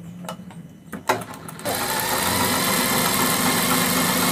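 DIYA sewing machine stitching a red fabric strip. A few clicks come as the fabric is set under the presser foot, then the machine runs steadily from a little under two seconds in.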